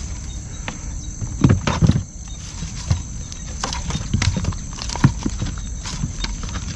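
Irregular knocks and rattles of a wire-mesh fish trap being handled in shallow water, the loudest cluster about a second and a half in. Insects chirr steadily behind.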